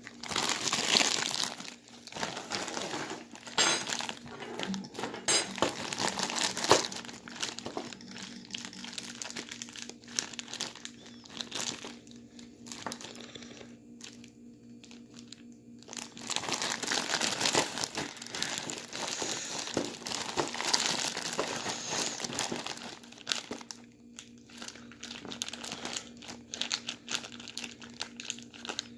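Plastic bag holding ice, salt and a sealed bag of drink being shaken and handled, crinkling in two long loud spells with quieter rustling between.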